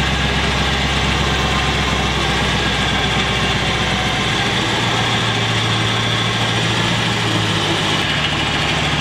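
Carbon 12,000 lb electric winch motor and drum gears running steadily, reeling synthetic rope back onto the drum under light load, with a vehicle engine idling underneath.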